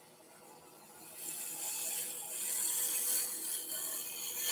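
Woodturning gouge cutting a spinning wooden handle on a lathe: a hiss of the cut begins about a second in and stops suddenly at the end, over a faint steady hum.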